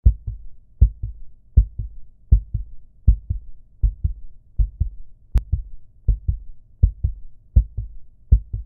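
Heartbeat sound effect: steady pairs of low thumps, a lub-dub about four times every three seconds, with a faint click about five seconds in.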